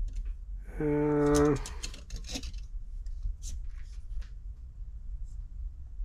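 A man's held "hmm" about a second in. Around it and after it come light metallic clicks and scrapes of a caliper being slid open and set against the top of a carburettor body.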